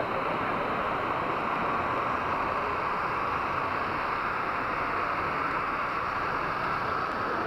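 Steady, even background noise of a large, busy exhibition hall, with no distinct events.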